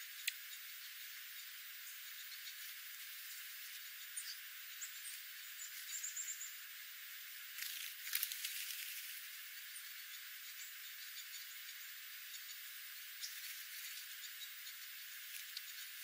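Dark-eyed juncos feeding on birdseed over a steady hiss, with scattered faint clicks and a short high twitter. About eight seconds in comes a brief flurry of wingbeats as a junco flies up.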